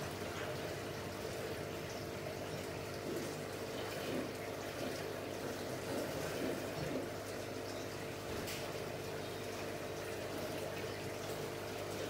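Aquarium water circulation: a steady trickle and splash of water with a constant low hum from the tank's pump.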